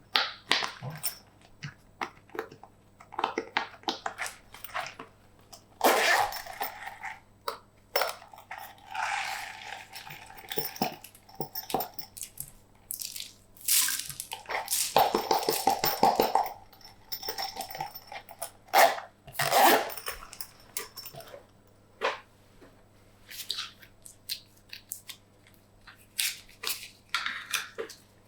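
Slime being squished, stretched and folded by hand, making sticky clicks and squelches, with a dense run of rapid crackling pops about halfway through.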